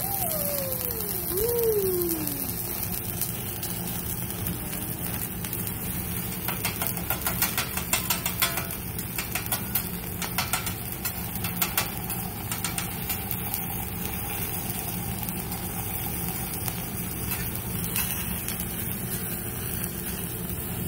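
Steady hum of the hibachi grill's exhaust hood with food sizzling on the flat-top griddle. At the start, two whistle-like tones slide downward, and from about six to twelve seconds in, a quick run of sharp metal clacks from the chef's spatula and knife striking the griddle.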